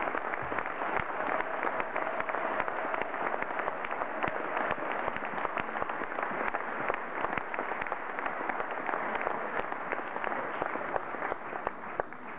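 Audience applauding: a dense patter of many hands clapping, dying down near the end.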